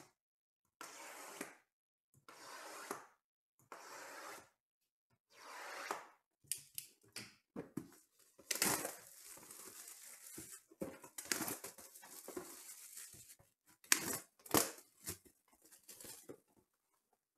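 Sealed trading-card boxes sliding against each other in about five separate strokes of a second each as they are shuffled. From about six seconds in, plastic shrink wrap is torn off a box and crumpled, a dense crackling and crinkling.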